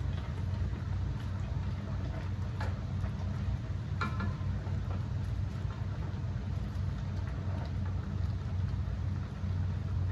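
Pot of water at a rolling boil with glass noodles being stirred by a wooden spoon, bubbling over a steady low hum, with light clicks of the spoon and one brighter knock against the steel pot about four seconds in.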